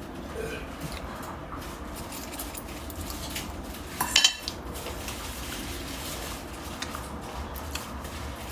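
Utensils clicking and scraping against dishes while eating, with many small clicks and one louder clatter about four seconds in.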